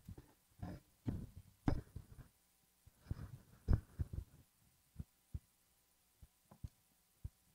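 Handling noise of a phone camera being carried: rustles and dull thumps, then a few separate soft knocks.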